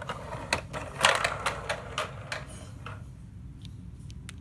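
Small plastic toys being handled: scattered light clicks and taps, with a scraping rustle about a second in and a quick run of small clicks near the end, over a steady low hum.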